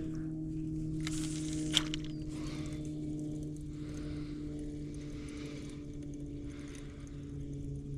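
Soft, repeated sloshing of water around the legs of someone wading, over a steady low hum. A hiss about a second in ends in a single sharp click.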